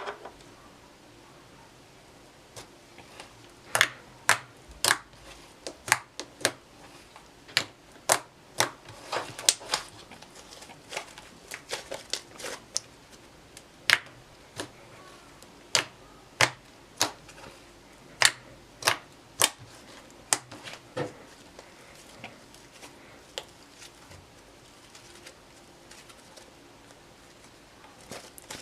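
Glitter slime being squeezed and stretched by hand, giving off a long run of sharp, irregular pops and clicks, one or two a second, that fall away for the last several seconds.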